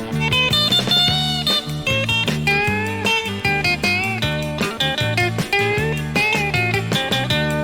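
Country band's instrumental break: a lead line with gliding, bent notes on guitar or pedal steel over electric bass and a steady drum beat, with no singing.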